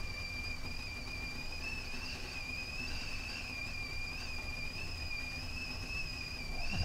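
Stovetop whistling kettle whistling at the boil: one steady high whistle that wavers slightly in pitch, with a low rumble beneath.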